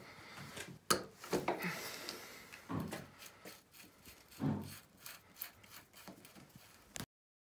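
Socket wrench at work on the 32 mm steering stem nut of a Yamaha YZ125's upper triple clamp: irregular metal clicks and knocks of the socket and tool against the clamp, with a short stretch of scraping about a second and a half in. The sound cuts off abruptly near the end.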